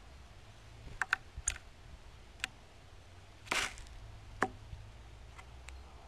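Scattered sharp clicks and taps, with a brief rustling flutter about three and a half seconds in: a northern cardinal arriving on a plastic tray feeder.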